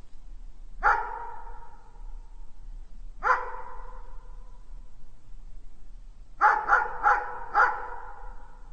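A dog barking: a single bark about a second in, another a little after three seconds, then a quick run of four barks near the end, each leaving a short echo.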